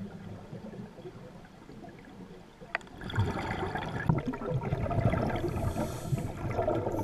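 Scuba diver's exhaled regulator bubbles rumbling and gurgling underwater, muffled. Quieter at first, with one sharp click, then louder and irregular from about three seconds in.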